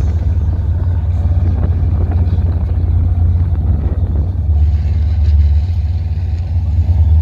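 Deep, steady exhaust rumble of a classic muscle car's engine at low revs as the car rolls slowly away.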